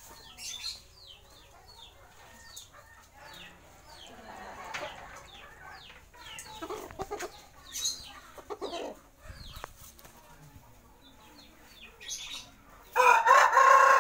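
Chickens clucking on and off, then a Bangkok game rooster crows loudly about a second before the end.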